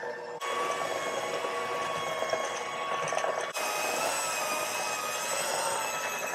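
Electric hand mixer running steadily, its beaters working flour into a thick molasses cake batter in a bowl. The motor's whine shifts abruptly in pitch twice.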